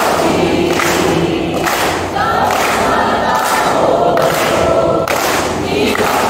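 A large group of young Scouts singing a camp yell together in unison, with sharp hand claps every second or so.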